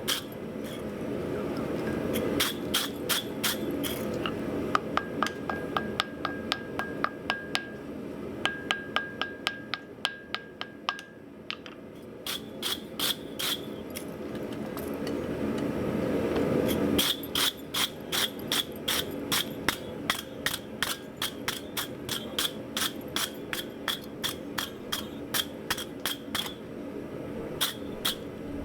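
Hammer blows on hot steel over an anvil as a French peen hammer head is forged, in quick runs of about two to three strikes a second with a short pause near the middle, each blow ringing. A steady rushing noise underneath cuts off sharply about two-thirds of the way through.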